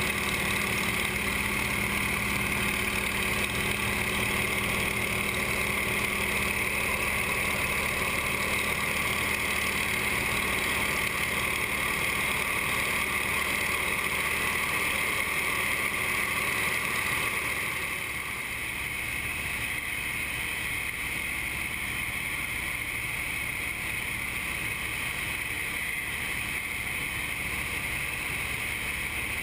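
Steady drone of a piston trainer aircraft's radial engine and propeller with the rush of the airflow, heard from inside the cockpit. It gets a little quieter and loses some of its low hum about two-thirds of the way through.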